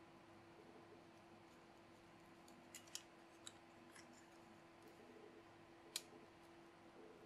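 Faint small clicks and taps of the LED spinner kit's metal and plastic plates and bearing being handled and fitted together: a few scattered clicks, the sharpest about six seconds in. A steady low hum from a fan runs underneath.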